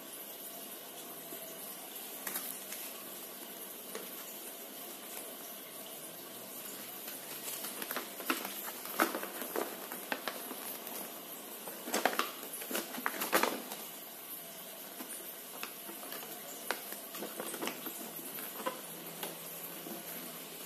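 Paper rustling and crackling as a folded instruction leaflet is unfolded and handled, in two flurries about eight and twelve seconds in, over a steady background hiss.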